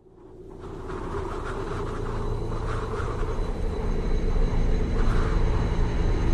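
Hitachi long-arm excavator's diesel engine running steadily, fading in over the first couple of seconds.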